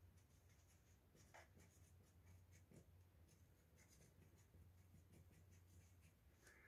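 Faint scratching and squeaking of a felt-tip marker writing a label on a painted panel, in many short strokes, over a low steady hum.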